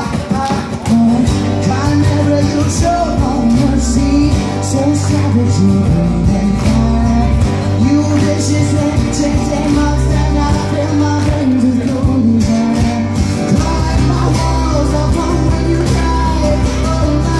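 Live acoustic rock song: a voice singing over strummed acoustic guitar with a strong, steady bass underneath.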